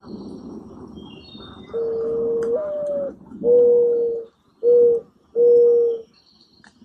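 Mourning dove singing its coo song: a long first note that steps up in pitch and falls away, then three shorter, steady coos. Faint high chirps of small birds and a low rushing noise before the first coo lie underneath.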